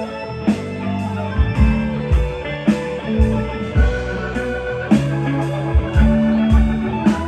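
Live band playing an instrumental rock passage: electric guitar lines over bass guitar, keyboard and a steady drum beat.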